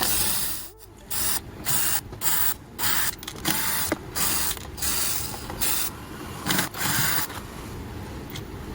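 Casing of a home theatre unit being opened: a run of short bursts of hissing, whirring noise with brief gaps, one longer stretch near the middle.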